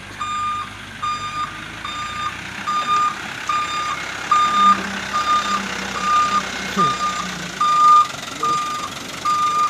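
A light truck's reversing beeper sounds a short, steady-pitched beep about once every 0.8 seconds as the truck backs up. Beneath it the truck's diesel engine runs low and steady.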